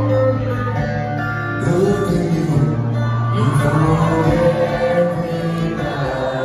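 Live acoustic rock music: acoustic guitar and a second guitar playing, with a male lead vocal coming in about a second and a half in.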